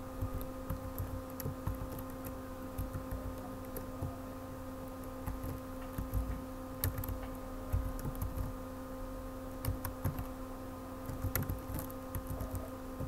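Computer keyboard being typed on in short, irregular runs of keystrokes, over a steady hum.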